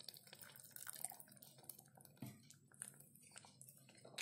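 Faint wet squelching and light clicks of a wooden spatula stirring thin tomato gravy with peas and paneer in a kadhai, just thinned with hot water.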